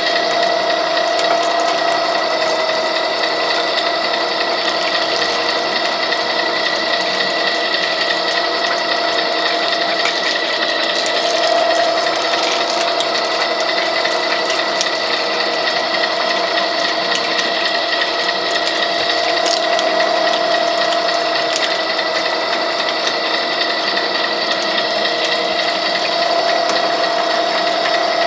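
Wheeler-Rex 6590 gear-driven pipe threading machine running at slow speed while its die head threads pipe, a steady mechanical hum with a constant whine from the gear drive.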